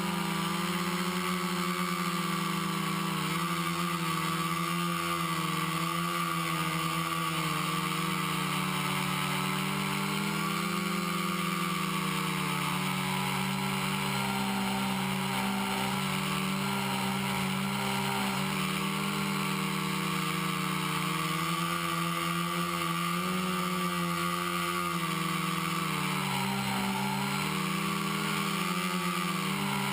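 Electric quadcopter in flight: four Exceed RC Rocket 2215 920Kv brushless motors spinning 10-inch APC propellers in a steady buzzing hum, its pitch wavering up and down as the throttle is adjusted.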